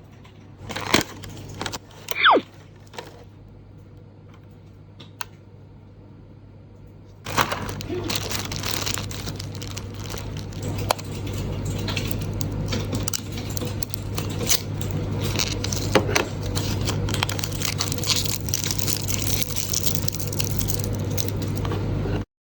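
Packaging being handled and unwrapped: a few sharp clicks at first, then, from about a third of the way in, a continuous rustling, crinkling clatter, over a steady low hum.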